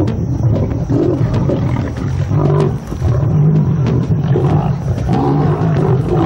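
Several lions growling and snarling without a break while they fight over a warthog kill.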